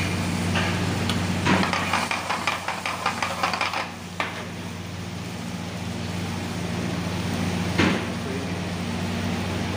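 Frying pan on a gas burner: a spell of rapid clicks and clatter as boneless chicken pieces are dropped into the hot pan, followed by a couple of single knocks. A steady low hum runs underneath.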